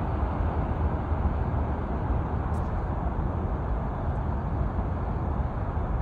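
Steady low rumbling background noise outdoors, strongest in the deep bass, with no distinct events.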